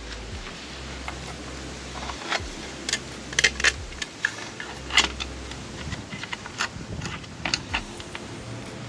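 Irregular metallic clicks and taps of licence-plate screws and hardware being handled and fitted to a motorcycle's plate mount.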